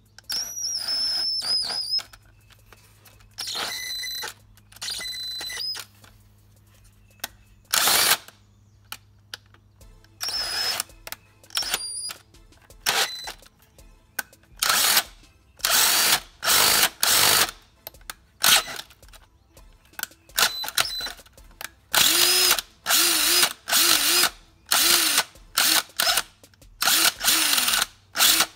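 Electric drill running in many short stop-start bursts, some with a whine that shifts in pitch, as its large bit re-drills the stripped drain plug hole in the BMW X5's oil pan for a thread insert.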